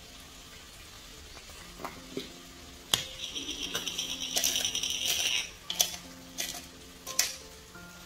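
Eggs and milk beaten with a metal utensil in a glass Pyrex measuring jug: a few separate clinks, then about two and a half seconds of rapid clinking against the glass, then a few more clinks. Soft background music underneath.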